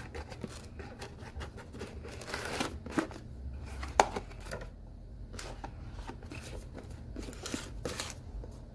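Handling noises: rustling and scattered light clicks, with a sharper click about four seconds in, over a steady low hum.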